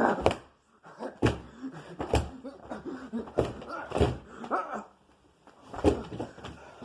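About eight sharp thuds of blows landing, irregularly spaced, with short yelping cries between them.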